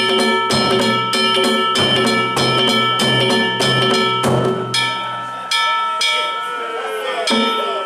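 Danjiri festival music: small metal gongs struck in a steady quick rhythm, about two to three strikes a second, each leaving a ringing tone, over a big taiko drum. The drum drops out about five and a half seconds in while the gongs ring on.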